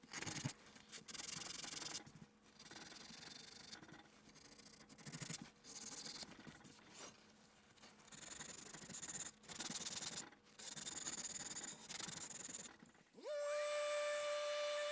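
Sandpaper rubbed by hand over teak wood in short scratchy bursts with gaps between them. Near the end a power tool starts up with a rising whine and settles into a steady hum.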